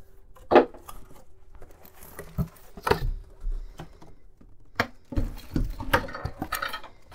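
Unpacking noise from a cardboard box: scattered knocks and clicks with some rustling as plastic-wrapped parts are moved about and lifted out. The loudest knock comes about half a second in, and the handling gets busier over the last two seconds.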